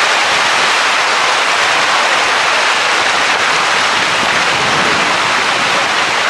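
Steady rushing noise of wind and water aboard an ocean racing yacht under sail, an even hiss that does not let up.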